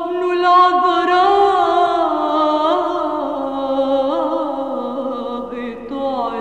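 A voice chanting a slow, ornamented melody with wavering glides, its pitch drifting gradually lower.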